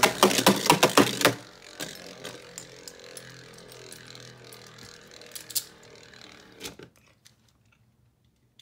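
Sharp plastic clicks and clacks, then a Beyblade Burst top spinning on the plastic stadium floor with a steady whirring rattle that slowly fades, ending with a couple of clicks near the end.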